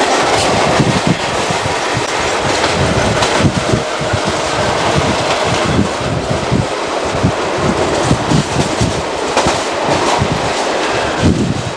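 Sydney single-deck electric train running at speed, heard from on board: a steady rush of wheel and rail noise with wheels clattering irregularly over rail joints, while another train runs alongside.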